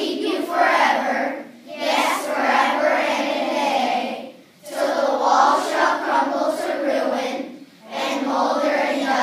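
A class of young children reciting a poem together in unison, in phrases of a few seconds with brief breaks for breath between them.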